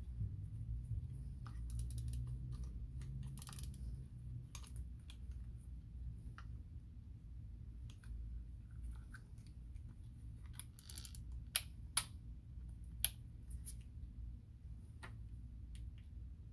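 Penn 113 conventional fishing reel being handled and turned over, with scattered light clicks and rattles and three sharp clicks a little past the middle.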